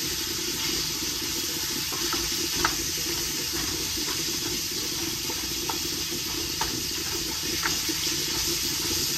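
Sausage sizzling in a frying pan: a steady hiss with a handful of light clicks and pops.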